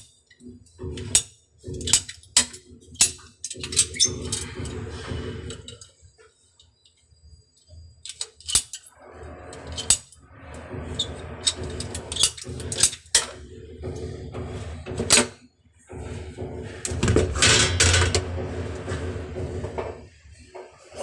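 Irregular sharp clicks and snaps of a ratchet-type PP-R pipe cutter being worked on white plastic water pipes, with handling knocks against the pipes. A louder scraping rustle comes about seventeen seconds in.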